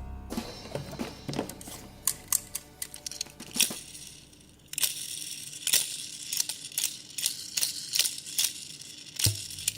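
Die-cast toy cars and their cardboard boxes being handled, with many sharp, irregular clicks and crinkling and a short quiet pause about four seconds in.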